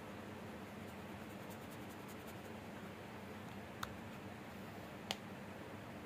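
Faint scratching of a wooden coloured pencil on paper over a steady low hiss, then two sharp light clicks, about four and five seconds in, as the pencil is laid down on the paper.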